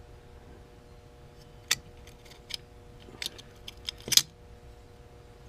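Small metal bolts and hand tools clinking as they are picked up and handled, with about seven sharp taps in the second half, the loudest a little after four seconds in.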